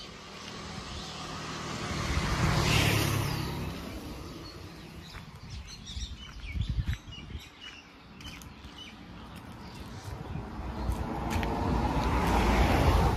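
Two road vehicles passing by, each swelling and fading with a falling pitch, the first about three seconds in and the second near the end; small birds chirp in between.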